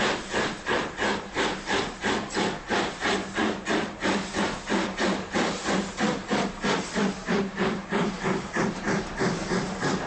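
Steam locomotive exhaust beats: a steady, even chuff about three times a second, the beats blurring together near the end.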